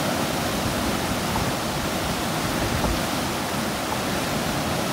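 Whitewater of a standing river wave and rapids rushing steadily.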